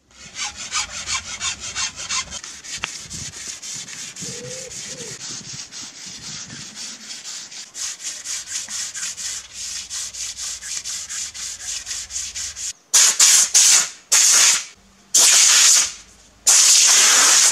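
Wooden yurt lattice pole being hand-sanded and filed: quick, even rasping strokes, several a second. About two thirds of the way through these give way to a few much louder, longer strokes along the pole, each lasting up to a second.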